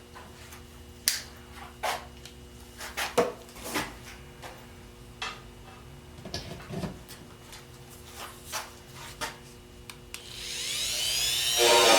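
Scattered light clicks and knocks of hand tools and metal parts being handled. Near the end a louder, high-pitched whirring hiss swells up.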